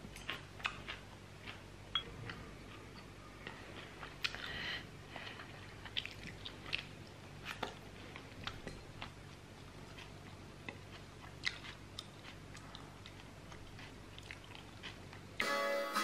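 A person quietly chewing and eating rice with chopsticks from a ceramic bowl, with scattered small clicks and taps. Guitar music comes in near the end.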